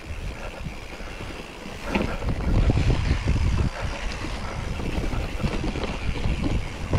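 Wind buffeting the microphone over the knocks and rattle of a mountain bike rolling over rough ground, louder for a couple of seconds near the middle.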